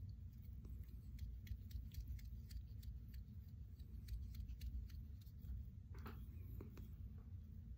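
Faint, scattered small clicks and ticks of a thread bobbin being handled while tying thread is wrapped around a jig hook in a vise, over a low steady hum. A few of the clicks are a little louder about six seconds in.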